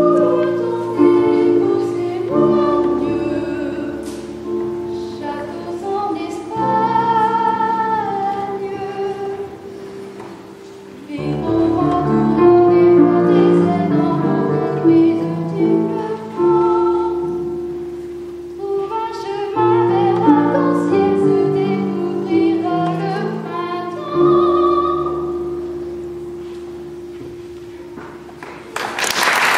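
A boy soloist singing a slow melody to digital piano accompaniment, the piano holding long chords under each phrase. Applause breaks out just before the end.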